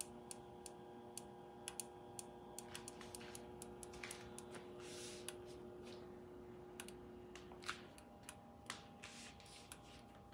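Irregular light popping and ticking from an empty electric hot pot and grill heating on max for the first time, which the owner takes for new-coating residue burning off. A faint steady hum underneath stops about eight seconds in.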